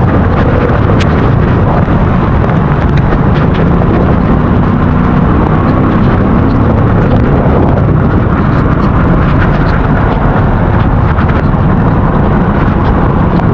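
Loud, steady rumbling noise of travel in heavy rain: wind and rain battering a DJI Osmo Action 4's bare built-in microphone over a vehicle's running engine, with scattered small clicks of drops.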